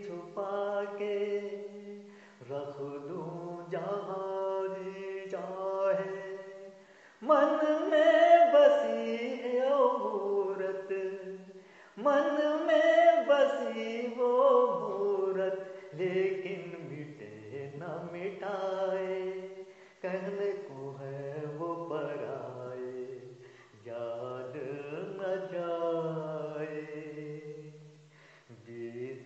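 A man singing a Hindi film song solo in long, held phrases with sliding pitch, pausing briefly between phrases.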